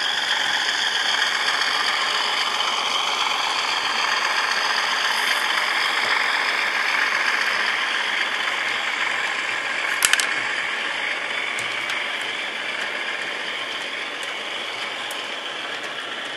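Model train running: a BR Blue Class 37 diesel locomotive model's electric motor whirring steadily as it and its hopper wagons roll along the track, with one sharp click about ten seconds in. The sound eases a little near the end.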